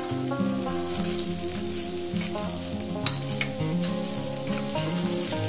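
Sliced snake gourd sizzling as it fries in hot oil in a stainless steel kadai, stirred with a metal spatula that clicks and scrapes against the pan, over background music.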